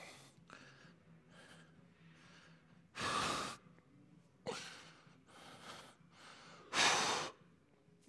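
A man breathing hard through his mouth, with two loud, forceful exhalations about three and seven seconds in and softer breaths between.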